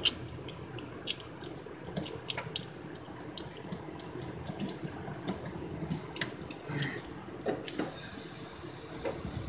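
Light clicks and small knocks of hands working among hoses, fittings and wiring in a van's engine bay, then a steady high hiss starts near the end.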